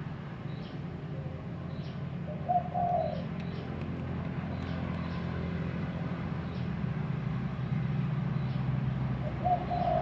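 Mini CNC wood engraver running with a steady low hum, while a dove coos twice, a short call about two and a half seconds in and again near the end.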